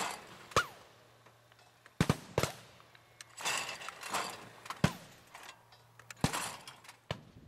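Shotguns firing at clay targets: about seven sharp cracks spread over several seconds, some in quick doubles.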